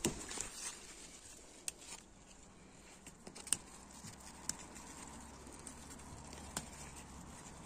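Faint rustling of bean leaves and vines around the phone, with a few sharp light clicks scattered through.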